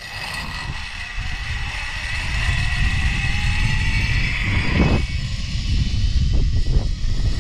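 Zipline trolley's pulley wheels running along the steel cable, a whirring whine that rises slowly in pitch and grows louder, with heavy wind rumble on the microphone.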